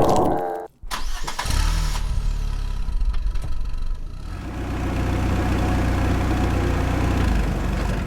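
An engine starting about a second in, then running with a steady low rumble.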